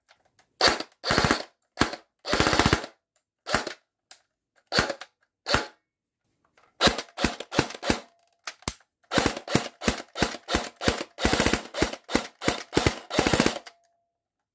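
FN Herstal P90 airsoft electric gun (AEG) dry fired with no BBs, its motor and gearbox cycling in single shots and short rapid full-auto bursts. Shots are spaced out at first, then come quickly from about halfway through.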